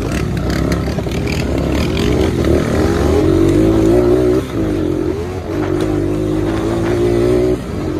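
Four-wheeler (ATV) engine running under throttle, its pitch climbing over the first few seconds, dipping briefly twice in the middle, then holding steady before easing off near the end.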